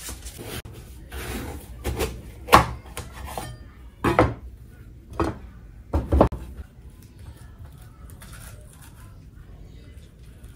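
Kitchen utensils knocking and clinking against a wooden cutting board and dishes: several sharp knocks over a few seconds, the loudest about two and a half seconds in. Near the end come softer scraping sounds as a metal spoon scoops out melon seeds.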